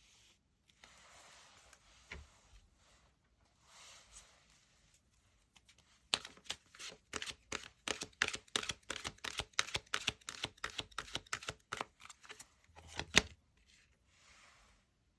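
Tarot cards handled and shuffled by hand: soft sliding and rustling at first, then from about six seconds in a quick run of card slaps, roughly four a second, ending with one louder snap.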